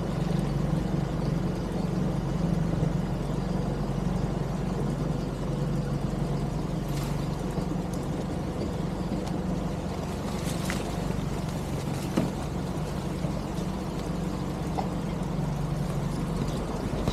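A vehicle's engine running steadily as it drives along a road, with a few faint knocks along the way.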